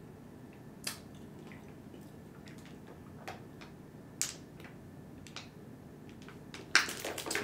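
A person drinking water from a plastic bottle: a few scattered soft swallowing clicks, then a quick run of crackling clicks near the end.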